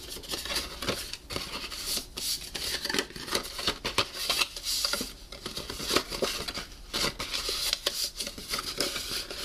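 Cardstock being folded and creased by hand along its score lines: irregular crisp clicks, rubs and papery crackles as the sheet is bent and handled.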